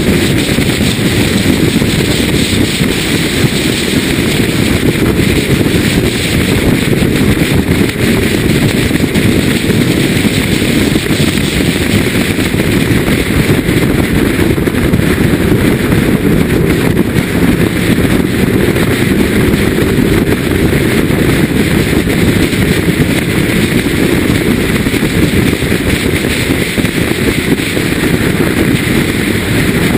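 BMW E36 M3's straight-six engine driven hard on track, its note rising and falling with throttle and gear changes, mixed with wind buffeting on the microphone.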